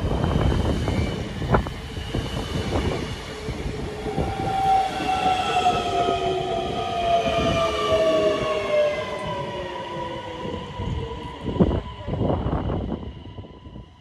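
DSB Øresundstog (class ET) electric multiple unit running along the tracks with a rumble. A whine of several tones falls steadily in pitch over several seconds and then holds steady. A few knocks come near the end.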